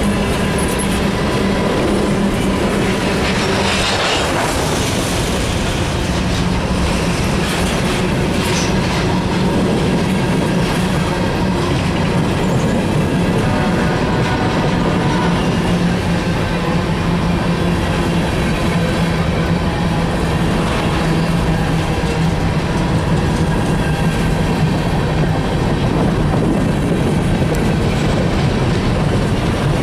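Freight train of covered hopper cars rolling past close by: a steady, loud noise of steel wheels on rail with a low hum underneath.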